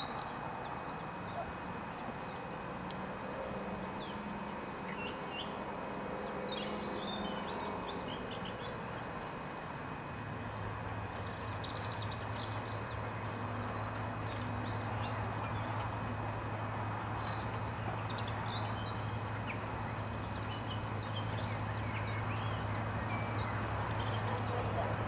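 Birds singing in repeated short chirps, with the low, steady drone of an approaching diesel locomotive's engine coming in about ten seconds in and slowly getting louder.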